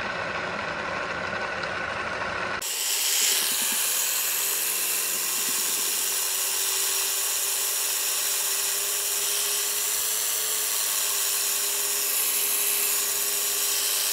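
Bedini 'schoolgirl' battery-driven pulse motor running with its acrylic rotor spinning fast: a steady whir with a hum that edges slightly up in pitch and then holds. About two and a half seconds in, the sound changes abruptly: a low rumble drops away and a brighter hiss takes over.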